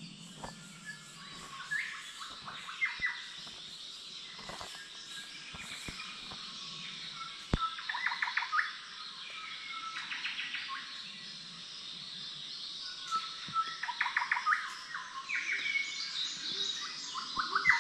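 Rainforest dawn chorus: several birds calling and singing, with bursts of rapid trilled notes every couple of seconds, growing busier near the end.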